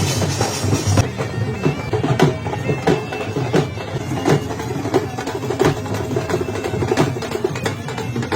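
Bagpipes of a procession pipe band playing a held melody over a steady drum beat.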